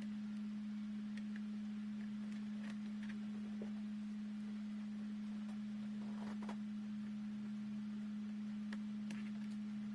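A steady low hum at one pitch, with faint scattered clicks and taps over it, typical of hands and tools working on a laptop during disassembly.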